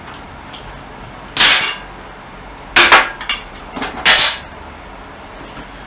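Three short, loud bursts of metal clatter from tools at work on a scooter engine being taken apart, spaced about a second and a half apart.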